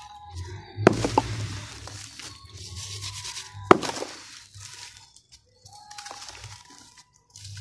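Dry red dirt lumps crushed by hand and falling into a basin of muddy water: gritty crumbling and pattering, with a sharp crack as a lump breaks about a second in and another near the middle.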